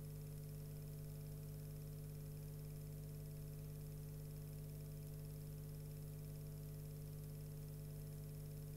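A steady low electrical hum with faint hiss, unchanging throughout. There is no sound from the fire itself.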